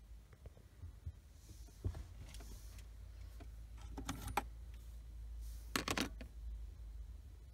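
Car cigarette lighter being gripped and pulled out of its 12V socket: a few scattered clicks, then two short clusters of metallic clicks and rattles, the loudest near the end, over a faint steady low rumble.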